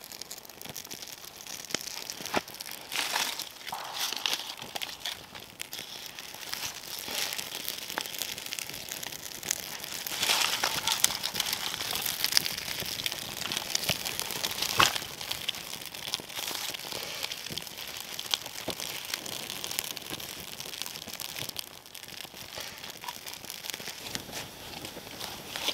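Freshly lit birch bark and kindling burning in a small campfire, crackling and popping with many small sharp snaps. Dry twigs are handled and laid on, and the crackling grows busier midway through.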